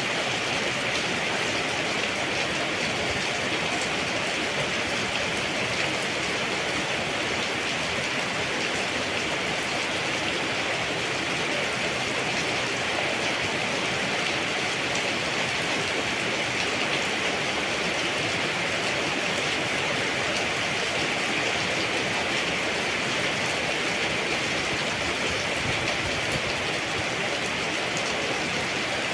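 Steady rain falling in a tropical salak garden: an even, unbroken hiss of rain with fine patter of individual drops.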